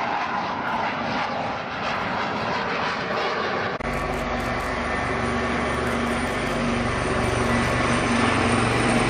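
A jet fighter's engine noise, an even rushing sound, for the first few seconds. About four seconds in it cuts abruptly to two helicopters flying low, whose rotors and turbines give a steady low hum that grows slightly louder.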